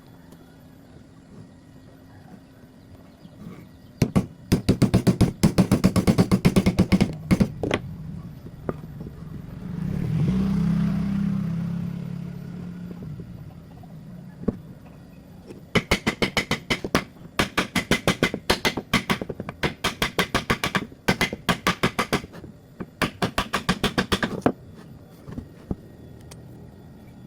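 Runs of quick, sharp knocks, several a second, of a hammer tapping on wood. In the middle, a motor's hum swells and fades away.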